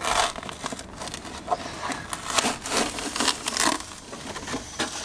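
Old glued-down carpet and its fibrous backing being torn and picked off a car's footwell floor pan by hand: irregular scratchy rips and crunches.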